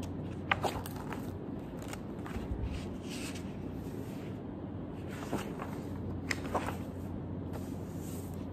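Pages of a spiral-bound paper notebook being leafed through and turned by hand: a few short rustles and taps of paper over a steady low hum.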